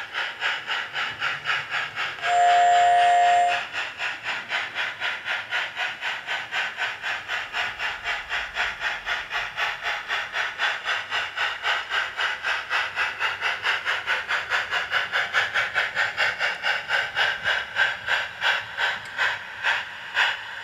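Sound card in a 7mm-scale Mudhen (D&RGW K-27) model steam locomotive playing steady steam chuffs, about three a second, as the loco runs. One whistle blast of several tones sounds about two seconds in and lasts just over a second.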